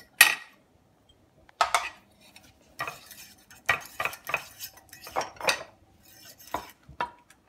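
Metal fork scraping and tapping against a ceramic plate in quick repeated strokes as it mixes raisins into mashed banana. A single sharp clink just after the start is the loudest sound.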